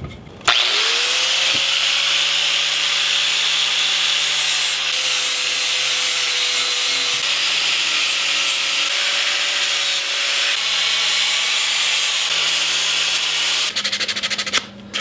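Electric angle grinder spinning up and grinding a purpleheart wood axe-handle blank: a steady motor whine over a loud abrasive hiss. Near the end the grinding stops and gives way to quick back-and-forth hand strokes of a tool rubbing the wood.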